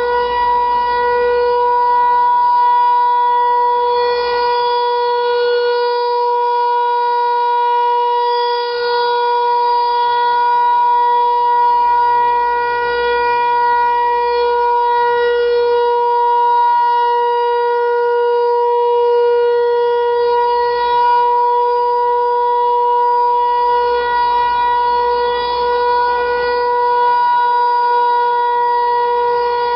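Federal Signal Equinox electronic outdoor warning siren sounding a loud, steady tone that neither rises nor falls: the steady alert signal of a siren test.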